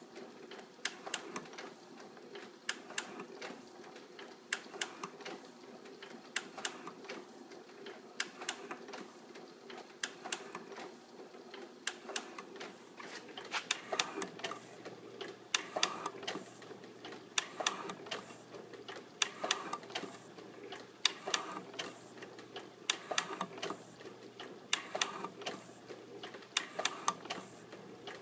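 Atlas 7B bench metal shaper running and cutting metal: its ram strokes back and forth about once every two seconds, each stroke giving a clatter of sharp clicks over a steady motor and belt hum.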